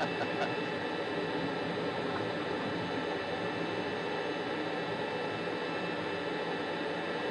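Jet trainer's engine running steadily at taxi power, heard from the cockpit as an even hiss.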